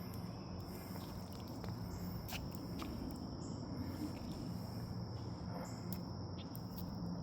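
Outdoor ambience: a steady high-pitched insect drone, like crickets, over a low background rumble, with scattered light clicks and a few faint high chirps.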